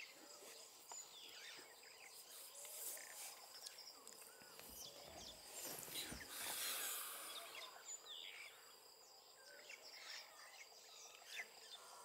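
Faint bush ambience: scattered short bird chirps over a steady high insect trill, with a brief rush of noise about six seconds in.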